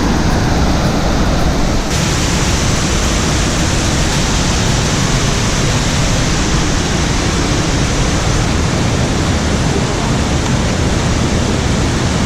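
Waterfall roaring: a loud, steady rush of falling water with no breaks.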